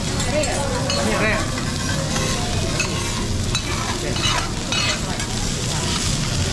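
Food sizzling on a teppanyaki griddle, with metal spatulas scraping across the hot plate and several sharp clicks of metal on metal in the middle of the stretch.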